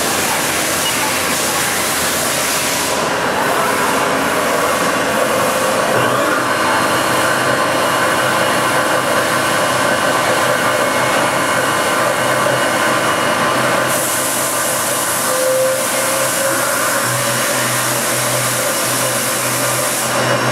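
Haas VF-5 vertical machining center running its spindle with no cut, a steady machine hum under a loud hiss of coolant spraying from the nozzles. A low hum comes in about six seconds in, and the hiss turns brighter for the last few seconds.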